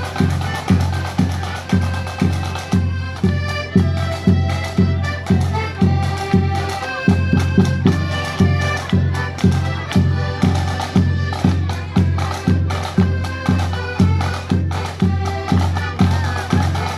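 Accordion band playing a march tune: piano and button accordions carry the melody over a steady bass drum beat of about two beats a second.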